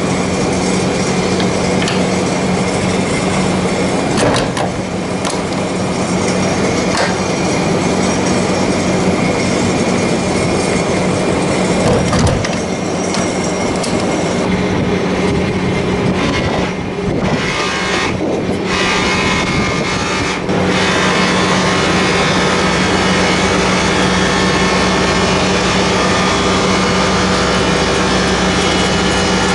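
Steady, loud machinery drone with a constant low hum, with a few sharp clicks in the first half as the engine's fan cowl latches are worked. The drone steps up slightly in loudness about two-thirds of the way through.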